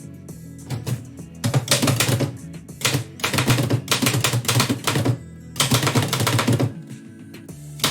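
Keys of a 1918 Oliver typewriter being struck in quick runs, in three bursts of rapid typing with short pauses between them, over background music.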